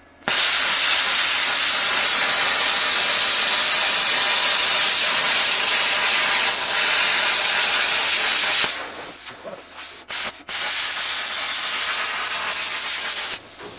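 Grovers Cut40 air plasma cutter torch firing: a loud, steady hiss that starts suddenly and runs about eight and a half seconds, then goes on quieter with two short breaks. The cutter is working again after the broken wires in its torch hose were replaced.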